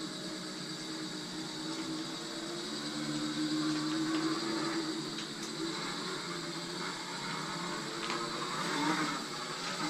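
24 V DC electric motor of a radio-controlled push mower running, its hum rising and falling in pitch as the speed changes, with a steady high whine and a few sharp clicks.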